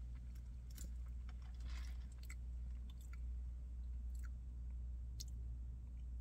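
A person sipping iced soda through a straw and tasting it: a brief slurp, then scattered lip smacks and small mouth clicks. A steady low hum runs underneath.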